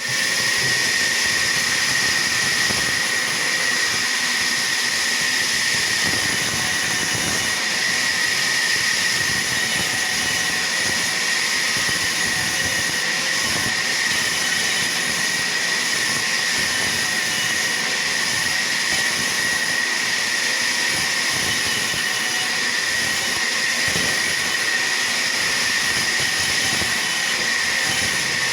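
Sawmill machinery running steadily, a constant high whine over a dense hiss with no pauses.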